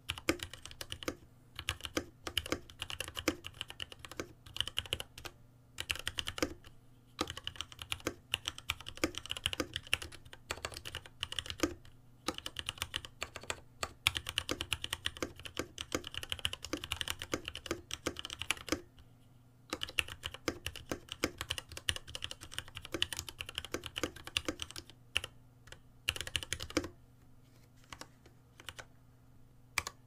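Typing on a Varmilo Summit mechanical keyboard: fast runs of keystroke clicks broken by short pauses, thinning to a few scattered keys near the end.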